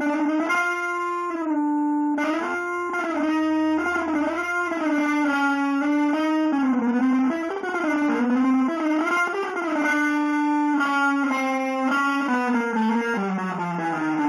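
Electric guitar playing a slow single-note melody of long held notes. The pitch wavers and bends in the middle, and the line steps down lower near the end.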